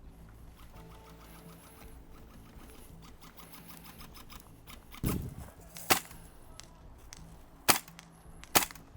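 Four single airsoft gun shots, sharp cracking reports at irregular intervals in the second half, the first with a low thud under it, over faint outdoor background.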